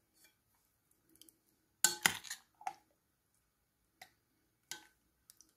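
Metal spoon knocking and scraping against a bowl while stirring chicken liver in sour cream: a quick cluster of clinks about two seconds in, then a few single clicks.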